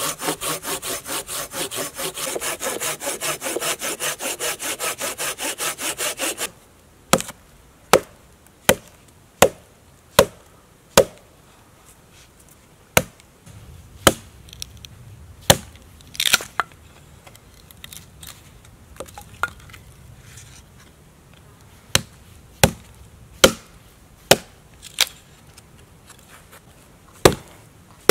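Hand saw cutting through a dead branch in quick, even back-and-forth strokes, stopping abruptly about six seconds in. A hatchet then chops down into wood on a log to split kindling: sharp single strikes, evenly spaced under a second apart at first, then more irregular.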